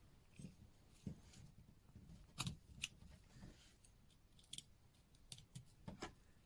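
Faint, irregular clicks and small taps of watchmaker's hand tools working on a watch case, as the winding stem is released and drawn out.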